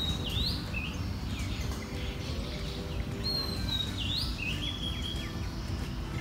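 A songbird singing two phrases about three seconds apart, each a held high whistle followed by a quick rising sweep and a few falling notes, over a steady low background noise.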